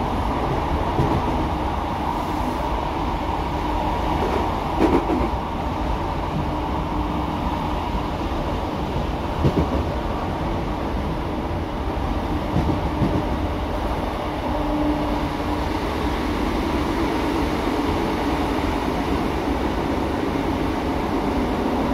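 Interior running noise of a British Rail Class 150 Sprinter diesel multiple unit under way: a steady drone from its Cummins turbo-diesel and wheels on rail. A few short knocks, some in pairs, come as the wheels pass over rail joints.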